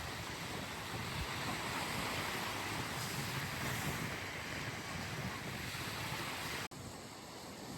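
Sea waves washing, with wind buffeting the microphone; the sound breaks off for an instant about two-thirds of the way through and carries on a little quieter.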